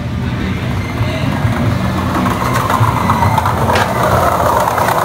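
Skateboard wheels rolling over a tiled walkway, the rolling noise growing louder as the board comes closer, with a single sharp click about four seconds in. A low steady hum runs underneath.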